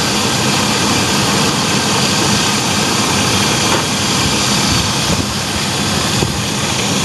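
Chevy Astro van's engine idling steadily while Blue Devil head gasket sealer circulates through its cooling system.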